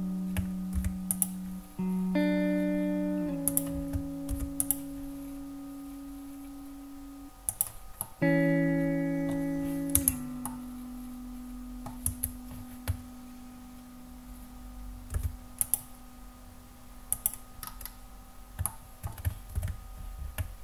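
Background music of slow guitar chords: a new chord is struck about two seconds in and another about eight seconds in, each left to ring and fade. Computer mouse clicks and keyboard taps sound over it.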